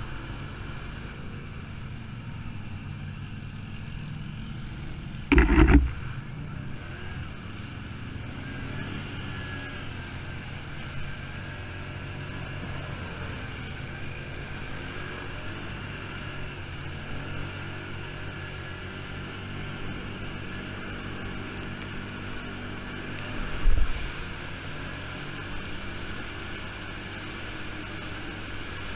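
Quad (ATV) engine running steadily while riding, with two loud thumps, one about five seconds in and one about twenty-four seconds in.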